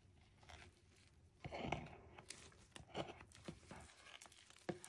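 Faint rustles and a few soft clicks as black nitrile-gloved hands handle a clear plastic measuring cup and stir stick.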